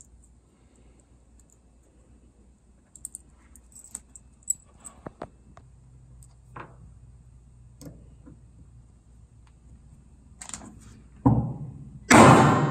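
Small metal clicks and taps from a jiffy rivet and its cap being handled and pressed together through a BioThane collar strap. Near the end there is a heavier dull thump, then a loud burst of sound.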